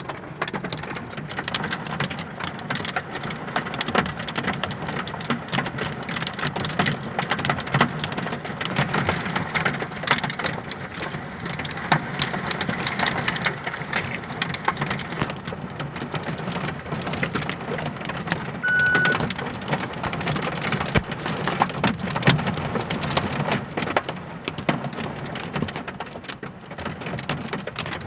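Heavy rain pouring and pattering on hard surfaces, thick with sharp drop impacts. A short high beep sounds about nineteen seconds in.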